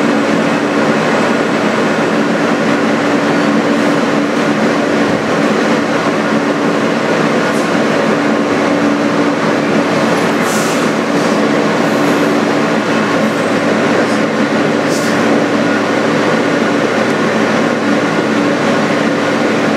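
Steady interior noise of a 2008 Alstom R160A-2 subway car: an even hum with two steady low tones running through it, and two brief hisses about ten and fifteen seconds in.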